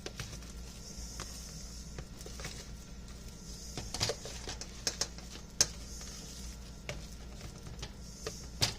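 Kitchen utensil knocking and scraping against a mixing bowl at irregular moments as thick mashed-potato filling is stirred, the sharpest knock about five and a half seconds in.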